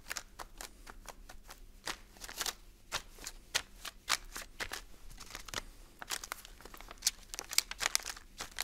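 A paint-loaded sponge dabbed repeatedly through a paper stencil onto a kraft paper bag, the stencil paper rustling under the hands: an irregular run of pats and crinkles, several a second.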